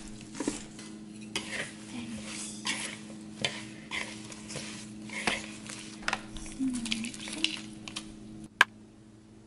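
Metal tongs tossing a salad of kale and cauliflower in a wooden bowl: repeated swishes of leaves and light clicks of the tongs against the bowl, about one or two a second, over a steady low hum. The hum stops about eight and a half seconds in, followed by one sharp click.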